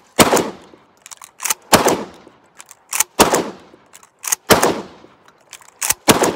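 Pump-action shotgun fired five times in steady succession, about one and a half seconds apart, each loud shot trailing off. Between the shots come the short sharp clacks of the slide being racked.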